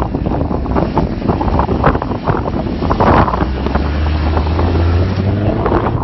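Off-road vehicle engine running, with heavy wind buffeting on the microphone and many short knocks. The engine hum grows stronger past the middle.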